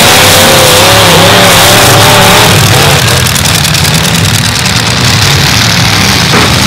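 Demolition derby car engines running loud and revving hard through open exhaust stacks. A wavering higher-pitched tone rides over them for the first two seconds or so.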